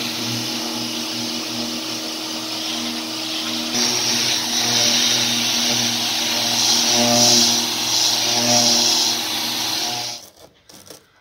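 Electric random orbital sander with dust extraction running steadily against a painted boat hull, a continuous whirring hiss with a low hum beneath it. It gets louder about four seconds in and cuts off abruptly near the end, leaving a few faint clicks.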